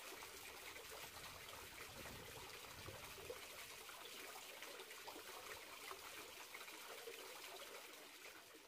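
Water splashing and trickling in a two-tier garden fountain, falling from the upper bowls into the basin. It is a faint, steady patter that fades out near the end.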